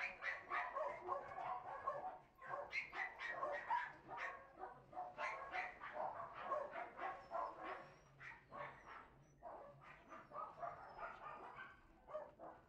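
A dog whining and giving short yips in quick, closely packed bursts, thinning out in the second half.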